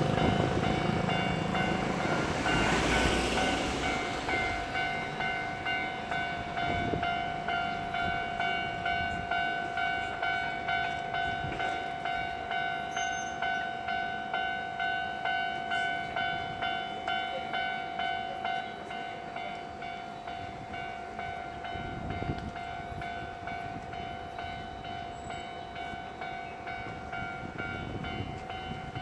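Railway level-crossing warning bell ringing in a steady pulse of about two strikes a second, growing fainter partway through. A passing train's rumble dies away over the first few seconds.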